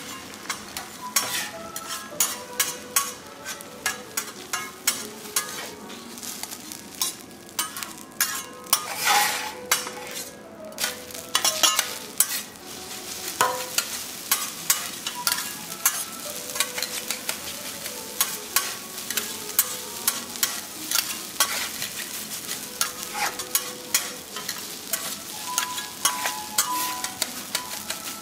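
Food sizzling on a steel teppanyaki griddle while metal spatulas scrape and clack against the plate in quick, repeated strokes, with a few short ringing metal scrapes.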